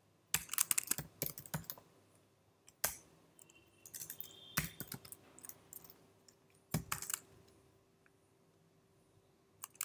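Typing on a computer keyboard: keystrokes in short bursts with pauses between, the quickest run about a second in.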